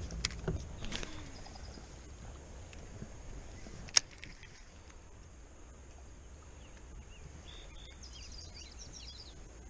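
Baitcasting rod and reel being cast from a boat: a few clicks and knocks as the cast goes out, then one sharp click about four seconds in. Near the end a bird gives a quick run of chirps over a faint low rumble.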